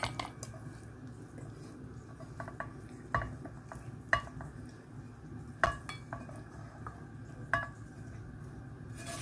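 Metal spoon clinking and scraping against steel kitchen utensils, a string of separate clinks each with a short ring, as the cooked masala is handled for grinding. A faint low hum runs underneath.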